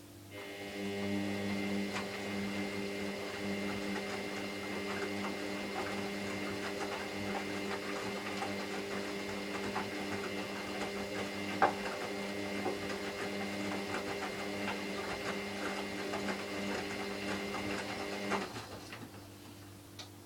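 Hoover washing machine's motor turning the drum during a 30 °C main wash, a steady mechanical hum with light clicks and knocks. It starts just after the beginning, stops about 18 seconds in, and a couple of faint ticks follow.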